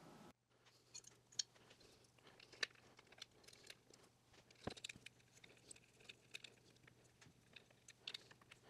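Faint, scattered light clicks and taps of small parts and tools being handled while fitting the 3D-printed DRO mount to the lathe, the sharpest about four and a half seconds in, over a faint low steady hum.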